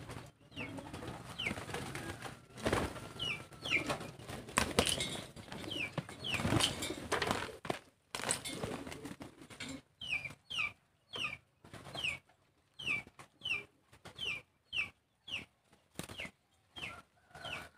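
A flock of pigeons feeding on grain, with wings flapping and bodies jostling, loudest in the first half. From about halfway a short, high, downward-sliding chirp repeats about twice a second.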